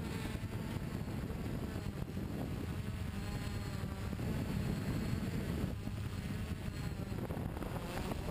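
Electric motors and propellers of a Gaui multirotor, heard from its own onboard camera: a steady buzzing hum whose pitch wavers up and down as the motors change speed, with wind rushing over the microphone.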